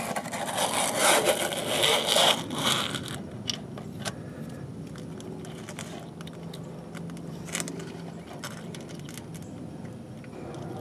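Ford 1700 tractor's metal hydraulic filter screen scraping as it is slid into its housing, loudest over the first few seconds. It is followed by scattered small metallic clicks as the flange bolts are fitted and started by hand.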